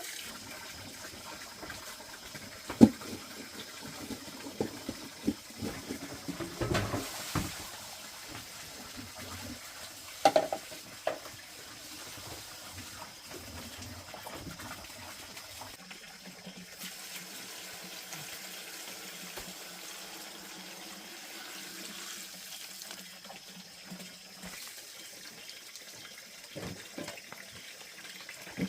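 Running water, flowing steadily, with a few sharp knocks and clatters, the loudest about three seconds in and again about ten seconds in.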